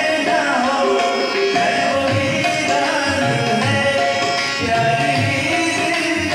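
A man singing into a microphone, accompanied by hand-drum strokes and steady held notes underneath.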